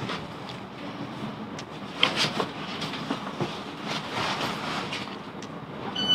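Class 707 electric train rolling slowly, a steady rumble with scattered clicks and knocks from the wheels running over rail joints and points. Door beeps begin right at the end.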